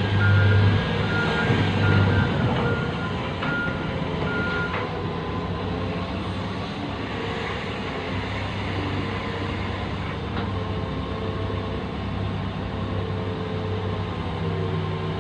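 Heavy diesel mining machinery running steadily, with a reversing alarm beeping at an even pace for the first five seconds or so before it stops.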